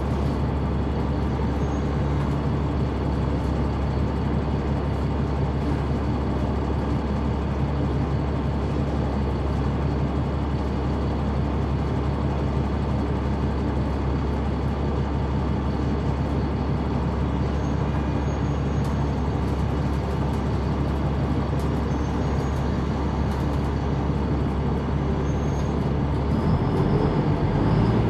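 Caterpillar C-9 ACERT diesel engine of a 2004 Neoplan AN459 articulated city bus, heard from the rear seat inside the bus, running steadily at an even low pitch. Near the end the engine note shifts and gets a little louder.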